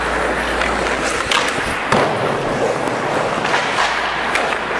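Ice hockey skate blades scraping and carving on rink ice during practice play, a steady grinding hiss, broken by a few sharp knocks of sticks and pucks, the loudest about two seconds in.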